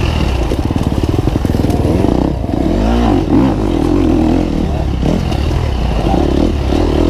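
Dirt bike engine revving up and down repeatedly as it is ridden through a race course, the pitch rising and falling with the throttle.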